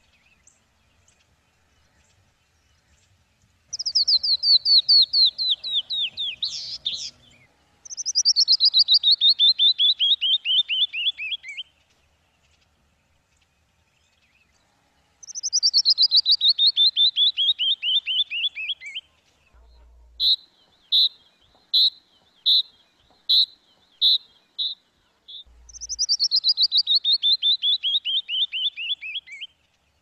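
Canyon wren singing: four times, a long rapid series of clear notes descending in pitch, a little slower at the end. Between the third and fourth songs comes a run of about eight separate short, sharp notes.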